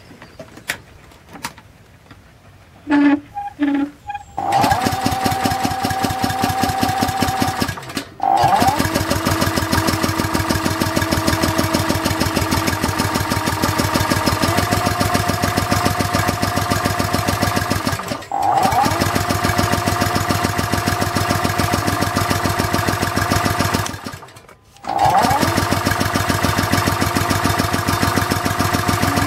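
Small OHV petrol engine catching a few seconds in after a few short sputters, then running with a fast, even firing rhythm. It cuts out briefly three times and picks straight back up, running rough on white spirit; the owner puts the trouble down to leftover isopropyl alcohol still in the carburettor.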